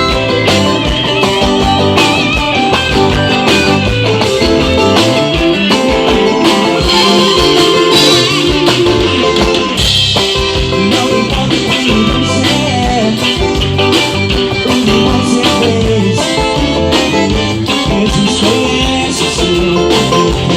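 A live band playing a gospel song: guitar over a steady drum beat, with singing.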